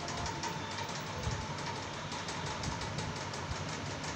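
A perforated metal ladle stirring vegetables and ground coconut paste in a metal kadai, making rapid, uneven clicks and scrapes against the pan.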